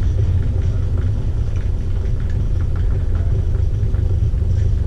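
Steady low drone of the Sundarban 10 river launch's engines, heard inside a passenger cabin while the ship is under way, with a few faint clicks of crockery.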